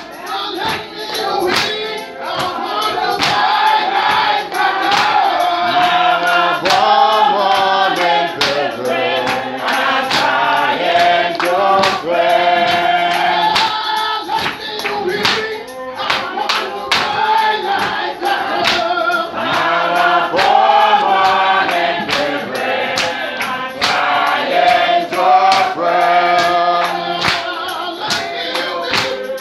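Church choir and congregation singing a gospel hymn together in mixed voices, over a steady beat of sharp percussive strikes.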